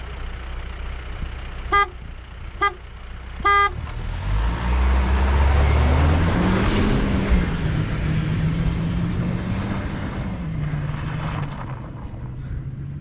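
A car horn toots three short times, the third a little longer. Then an SUV engine revs up, its pitch rising, and settles into steady running as the car drives over snow.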